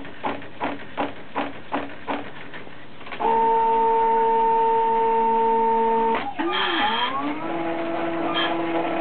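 Home-built plaster-powder 3D printer running its print and recharge cycle, its motors driving the axes. First come short regular pulses about three times a second, then a loud steady motor whine from about three seconds in. Near six seconds the pitch wavers and rises, then it settles into another steady whine at a different pitch.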